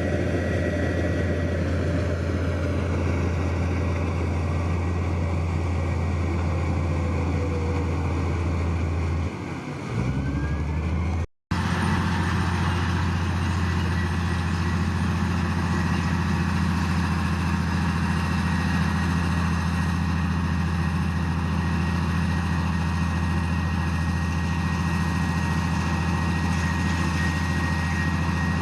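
Heavy diesel earthmoving machinery engine running steadily. About nine seconds in the engine note drops away, there is a moment of silence, and then the engine note picks up again with a somewhat higher hum.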